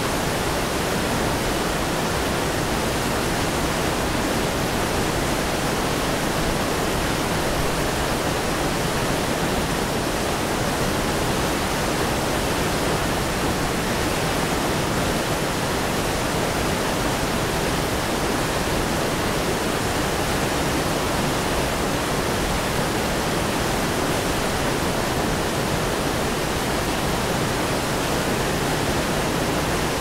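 Steady rush of the Fiellu waterfall pouring down a cliff into a rocky river, unchanging throughout.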